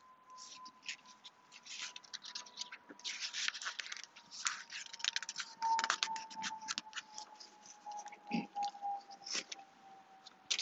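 Paper crackling and rustling as a picture book's pages are handled and turned: a dense run of short, dry scratches and clicks, busiest in the middle.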